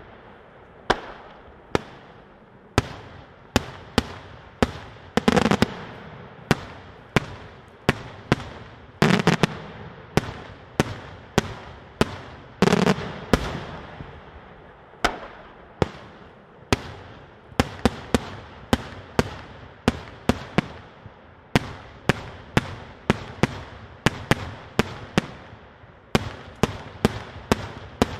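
Daylight fireworks: a steady string of aerial shell bursts, sharp bangs about one to two a second. A few deeper, heavier booms come about five, nine and thirteen seconds in, and the bangs come faster near the end.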